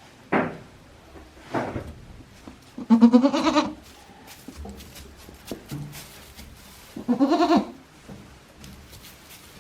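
Goats bleating: two long, wavering bleats about three and seven seconds in, with two shorter calls in the first two seconds.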